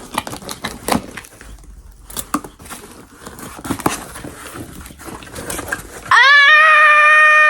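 Package being opened and handled, with scattered clicks and rustling, then about six seconds in a loud, high-pitched held cry of about a second and a half that drops in pitch at the end.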